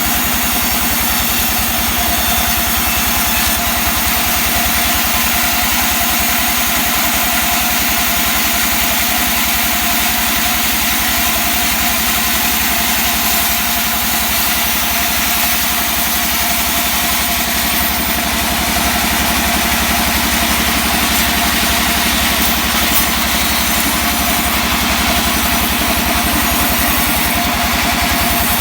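The engine of a wood saw cutting mahogany runs steadily at an even, loud level, with no rise or fall in speed.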